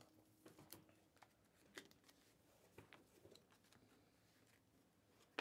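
Near silence with a few faint light clicks and rustles as trading cards and a clear plastic sleeve are handled.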